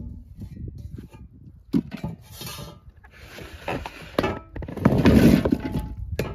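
Washed pickling cucumbers tipped out of a bowl into a large pot in several pours, rattling and knocking against each other and the pot's sides. The loudest pour comes about five seconds in.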